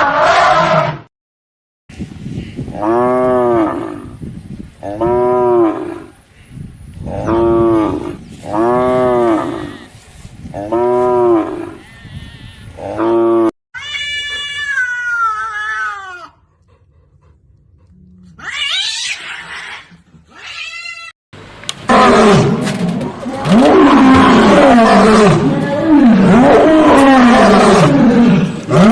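A string of different animal calls one after another. First comes a run of about seven rising-and-falling calls, then a high call that falls in pitch, two short high calls, and finally several seconds of loud lion roaring.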